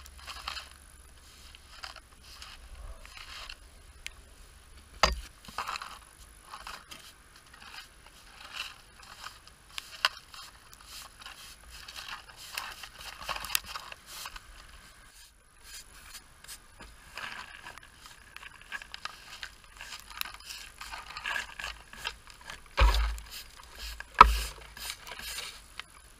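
A plastic dustpan scraped repeatedly across a tarmac driveway, scooping up hedge clippings, with occasional sharp knocks and two heavier thumps near the end.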